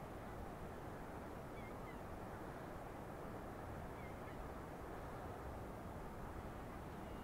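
A few faint, scattered seagull calls over a steady low rush of wind.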